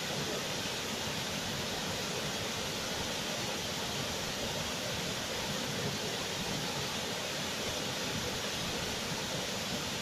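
Waterfall cascading over rocks, a steady, even rush of water with no break or change.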